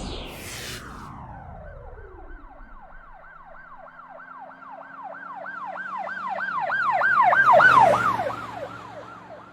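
Emergency-vehicle siren in a fast yelp, about three rising-and-falling sweeps a second, growing louder to a peak near the end and then fading. A long falling glide opens it.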